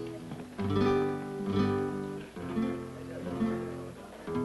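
Acoustic guitar strumming chords, with a hard, loud stroke about once a second.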